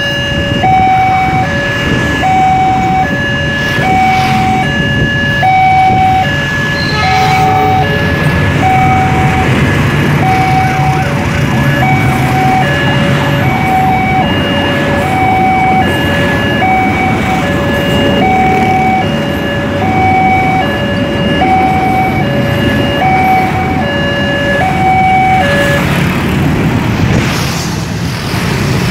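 Indonesian railway level-crossing alarm from a loudspeaker, sounding a two-tone electronic signal whose high and low notes take turns, each held for under a second. It runs over the low rumble of a passing train and waiting motorbike and car traffic. The alarm stops near the end, once the train has cleared the crossing.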